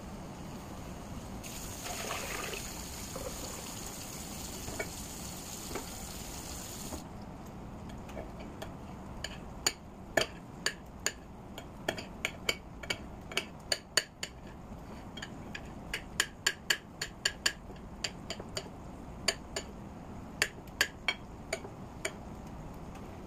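A kitchen tap runs for about five seconds near the start and is shut off. Then a knife clicks again and again against a ceramic plate as mushrooms are sliced on it, in sharp, uneven taps.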